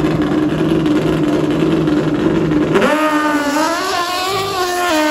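Drag-racing motorcycle engine held at high revs, then swinging up in pitch about three seconds in and dropping in a step near the end as it shifts up a gear.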